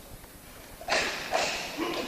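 Karate bunkai practice: after a quiet first second, three sharp, loud bursts follow in quick succession from techniques being done, with impacts and voice-like shouts or breaths mixed in.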